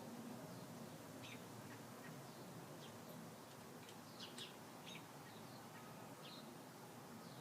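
Faint scattered bird chirps, short and high, over a steady low hum.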